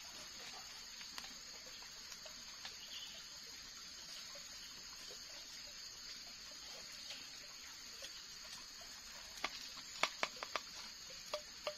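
Faint steady background hiss of the forest camp, with a quick run of sharp taps and clicks about nine to eleven seconds in as small objects are handled at the fireside.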